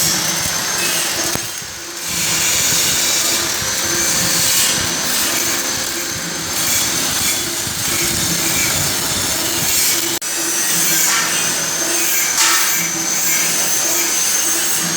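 Workshop power tool running steadily with a thin high whine, dipping briefly about two seconds in and breaking off for an instant about ten seconds in.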